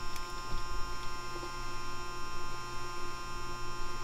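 Electric in-tank FiTech fuel pump in a 1977 Chevy C10 humming steadily as it primes with the ignition switched on, with a faint high electrical whine over it.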